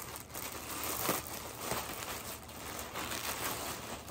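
Clear plastic garment bag crinkling and rustling as it is pulled open by hand.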